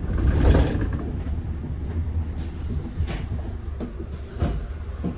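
Inside a moving double-decker bus: a steady low engine and road rumble, with several short knocks and rattles from the bus body.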